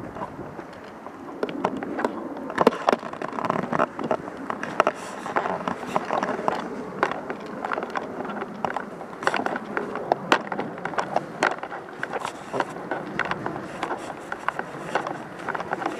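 Rustling and scuffing with many irregular sharp clicks and knocks, as of a player moving on foot with gear rattling.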